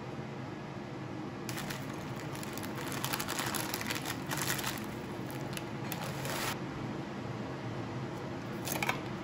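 A plastic bag crinkling as dry muesli pours out of it into a bowl, a crackly rustle lasting about five seconds from a second and a half in. Near the end a brief rasp as a plastic screw-top jar lid is twisted.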